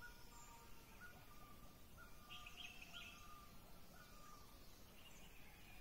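Faint birdsong: short whistled notes repeating about once a second, with a brief cluster of higher chirps about two and a half seconds in, over a steady background hiss.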